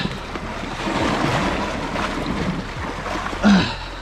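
Wind on the microphone and sea surf washing against rocks, a steady rushing noise, with a short vocal grunt about three and a half seconds in.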